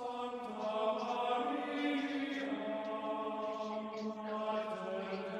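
Background music of slow chanting voices holding long, sustained notes that glide gently in pitch.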